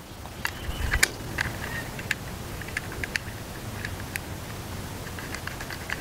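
Light, irregular clicks and taps of a metal brush cutter blade and its mounting parts being handled and fitted onto the attachment's gear head, about a dozen in all.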